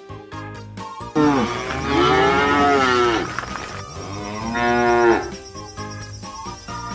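Cow mooing twice: a long moo beginning about a second in, then a shorter one around five seconds in, over soft background music.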